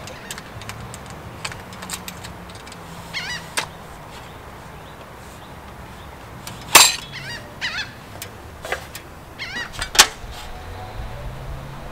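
A bird calling again and again in short, high calls that rise and fall in pitch. Small clicks and two sharp knocks come through, the knocks the loudest sounds, about seven seconds in and again near ten seconds.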